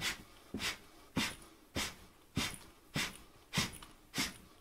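A person breathing out hard in short, even bursts, about one every 0.6 seconds, in time with jogging in place and punching the arms forward.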